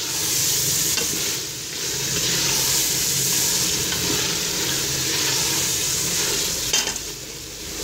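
Boiled white chickpeas frying in oil and spice masala in a pressure cooker pot, with a steady sizzle as a wooden spatula stirs them around.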